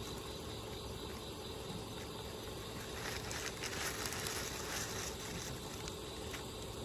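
Tortoiseshell cat eating dry kibble from a bowl: soft crisp crunching that grows more frequent about halfway through, over a steady background hiss.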